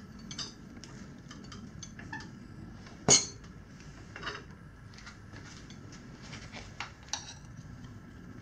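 Steel tire irons clinking and scraping against a motorcycle wheel rim as a tire bead is levered on. There is a series of scattered metallic clicks, with one sharp, loud clink about three seconds in.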